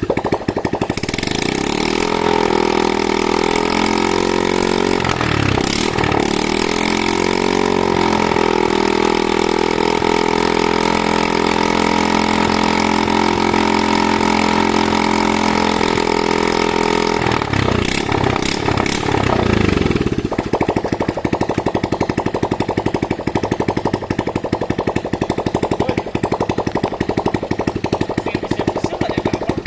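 Engine of a timber-hauling winch running, its pitch dipping and rising again several times, then settling about two-thirds of the way through into a rapid, even putter.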